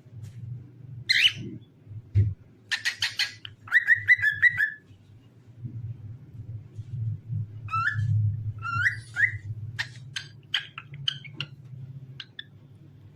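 Cockatiel whistling and chirping in short bursts: quick runs of sharp chirps and repeated whistled notes, some rising, with a low steady hum underneath.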